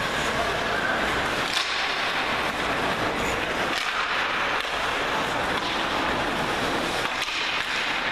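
Steady ice-rink noise during ice hockey play, with a few sharp stick or puck knocks. The clearest knock comes about a second and a half in.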